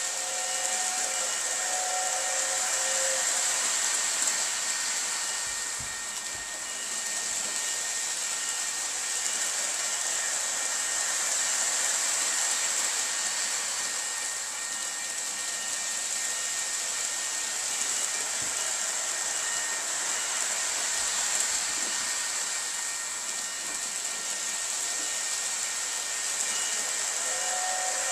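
Lionel O gauge Polar Express model train running around its track: a steady hissing whir of motor, wheels and rails, swelling and fading as the train circles the oval.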